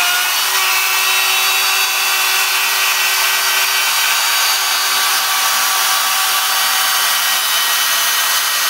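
CNC router cutting speaker holes in a studio-monitor baffle: a steady, dense hiss of the cutter in the material, with a few held whining tones from the spindle that shift pitch about half a second and two seconds in.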